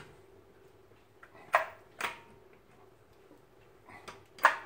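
Socket and breaker bar clinking on a car wheel's lug nuts as they are fitted and tightened: three sharp metal clicks, about a second and a half in, about two seconds in and near the end, over a faint steady hum.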